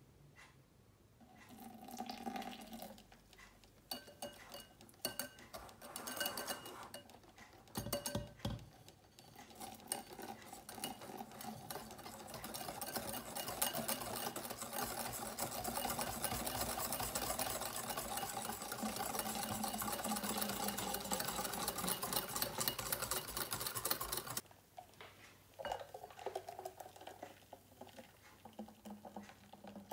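Wire whisk beating egg yolks in a glass mixing bowl as hot cream is poured in, a fast steady clatter of wire on glass that runs from about ten seconds in to just before the end and then stops abruptly. Scattered taps and clinks of the whisk, saucepan and bowl come before it, and a few soft clinks follow it.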